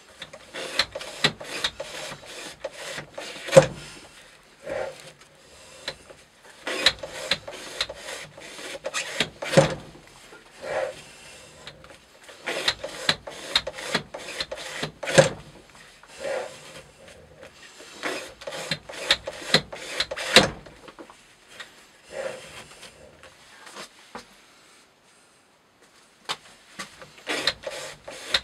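Thick natural-fibre rope being sliced through by a knife edge in a cutting-test rig: rapid rasping strokes as the blade saws into the fibres, each group ending in a louder crack as a slice comes off. This happens about every five to six seconds, four times. It pauses briefly before starting again near the end.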